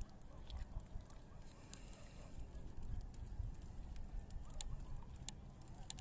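Faint open-air ambience on a small boat at sea: a steady low rumble with scattered sharp ticks.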